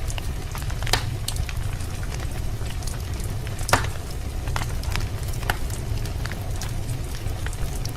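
Fire burning in a fireplace: a steady low rumble under irregular crackles and sharp pops. The loudest pops come about a second in and about halfway through.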